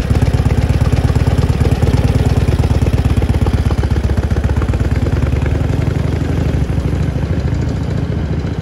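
1936 Harley-Davidson VLH flathead V-twin running with a rapid, steady beat as the bike pulls away and rides off, fading with distance over the last few seconds.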